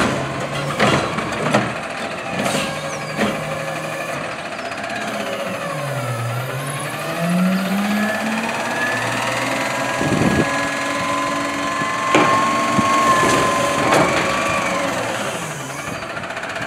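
Front-loading garbage truck running at the curb: the engine drones steadily, then dips and revs up about six seconds in to power the hydraulics as the automated arm grabs and lifts a cart, with a rising hydraulic whine. Several sharp metallic clunks come from the arm and cart being handled.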